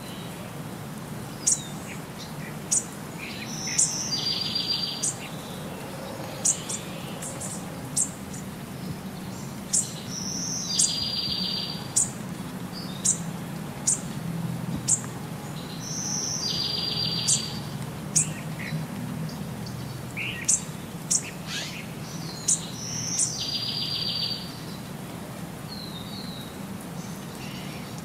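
Birdsong: sharp high chirps and short buzzy trills, the same pattern coming round about every six seconds, over a low steady hum.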